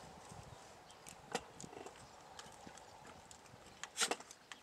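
Scattered short, sharp taps and clicks over a quiet outdoor background, the loudest a quick cluster of two or three knocks about four seconds in.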